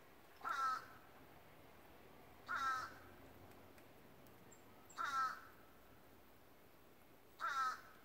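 A corvid calling out of sight: four short, harsh caws, evenly spaced about two and a half seconds apart.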